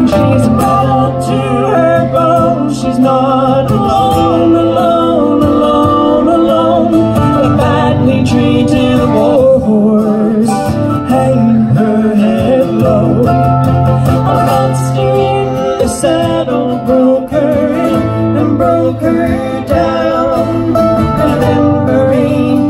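Live acoustic guitar and mandolin playing a country-style song, with a woman singing over them.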